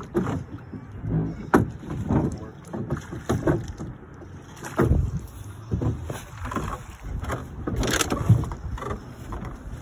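Water sloshing against the side of a small boat, with a few sharp knocks.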